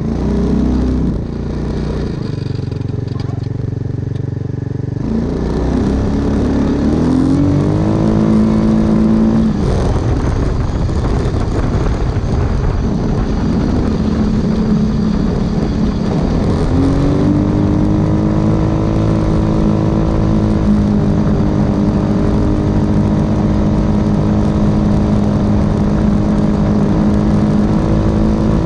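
Hammerhead 250 go-kart's 250 cc engine, heard from the seat while driving: its pitch climbs about five seconds in and levels off, drops back, then climbs again around seventeen seconds in and holds steady to the end, over a steady rushing noise.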